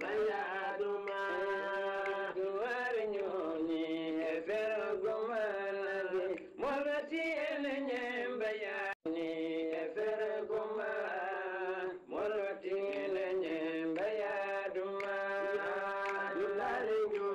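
A man's voice chanting in long, held, sliding notes, with short pauses for breath and a brief cut-out about nine seconds in.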